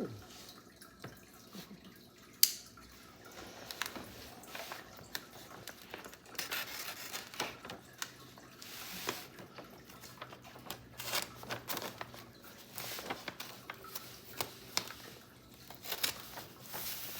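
Hands handling packaging and leather goods: irregular rustling with scattered clicks and taps, one sharp click about two and a half seconds in.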